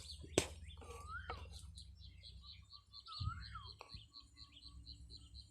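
A bird calling: a whistled note that swoops up and then down, given twice about two and a half seconds apart, over a rapid series of short high chirps. A low rumble runs underneath, with one sharp click near the start.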